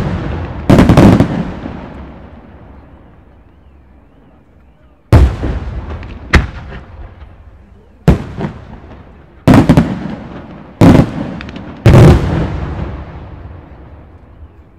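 Aerial firework shells going off with loud bangs: one about a second in, then after a lull of about four seconds six more, roughly one to one and a half seconds apart, each dying away slowly in a long echo.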